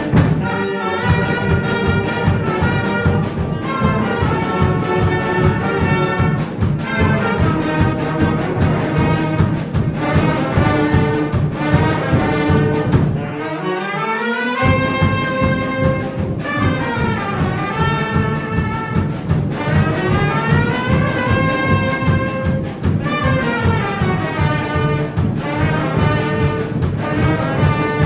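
Military brass band with saxophones, tubas, trumpets and drum kit playing a song with a steady beat. About thirteen seconds in the bass and drums drop out briefly under a rising run, then the full band comes back in.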